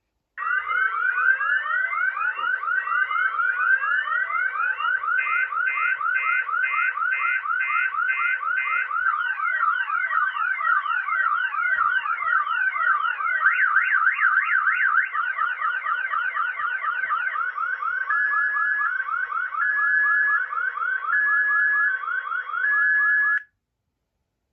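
Electronic alarm siren sounding as a pulled fire alarm, cycling through several patterns: rising whoops, a rapid pulsing beep, fast up-and-down warbling, then a two-tone high-low alternation. It cuts off suddenly near the end.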